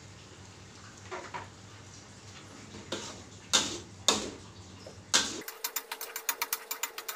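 Metal spatula knocking against a steel wok a few times, then a fast, even clicking, several strokes a second, as it stirs and scrapes thick green chili paste around the wok.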